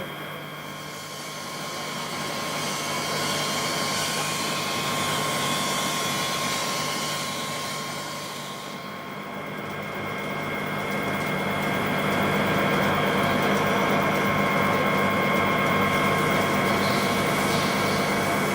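Kao Ming KMC 2000SV CNC portal milling machine running, a steady low hum with thin high whines over a mechanical hiss. The hiss swells and fades, dipping about halfway through, then grows louder and holds steady.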